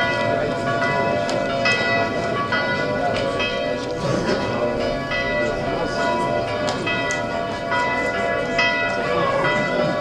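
Church bells ringing a continuous peal, one strike after another every fraction of a second with each tone ringing on into the next.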